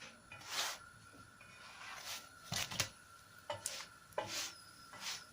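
Short scrapes and clicks of a utensil against a pan while the oiled yufka pastry cooking in it is handled, about six in a few seconds.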